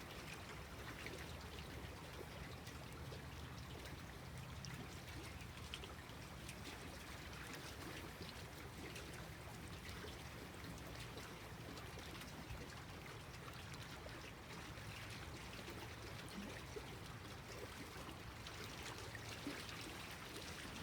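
Small lake waves lapping gently at the shore: a soft, steady wash of water.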